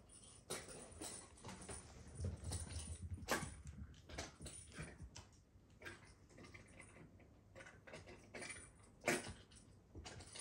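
Kittens' paws and claws tapping and clicking on a hardwood floor in an irregular patter, with a louder knock about three seconds in and another near the end.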